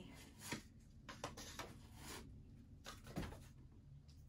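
Faint handling noises of leather ankle boots being picked up and turned over: a few light knocks and rubs.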